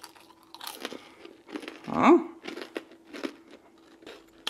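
Biting into and chewing a homemade Nutella cookie that is crunchy on the outside, with scattered short crunches, and a short rising vocal "mm" about two seconds in.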